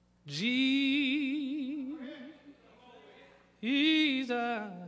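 A man singing gospel unaccompanied: two long held notes with wide vibrato, the second stepping down in pitch partway through.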